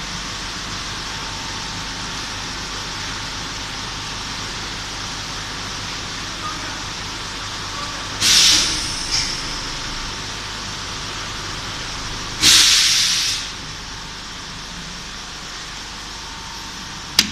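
High-frequency PVC welding machine: two sharp blasts of compressed air from its pneumatic press, about four seconds apart, the second lasting about a second, over a steady hiss. A sharp click near the end.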